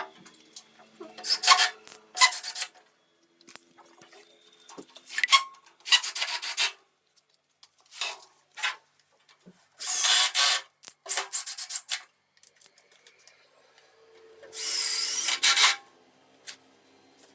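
A series of scraping, rasping strokes: a string of short ones, with two longer ones about ten and fifteen seconds in.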